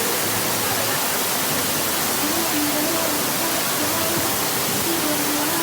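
Steady rush of falling water, with faint held tones that step in pitch underneath.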